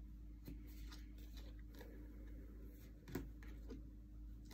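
Tarot cards being handled on a table: faint scattered taps and slides of card stock as cards are drawn and held up, the clearest tap about three seconds in, over a low steady hum.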